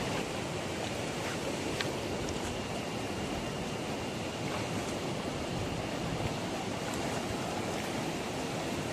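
Steady rush of river water, with a couple of faint ticks about two seconds in.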